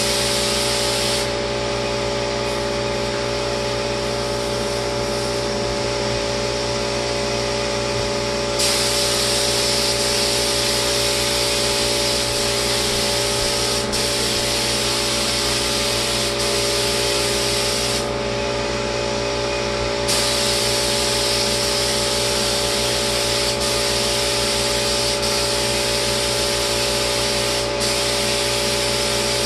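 Paint spray gun hissing as it sprays lacquer, over a steady machine hum from the spray rig. The hiss stops twice: for about seven seconds starting a second in, and for about two seconds two-thirds of the way through.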